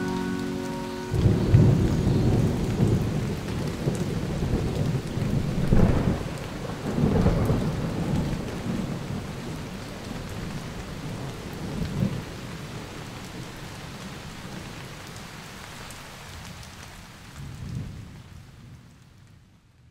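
Rain falling with rolling rumbles of thunder, swelling several times and slowly fading out to nothing near the end. The last notes of a music track stop about a second in.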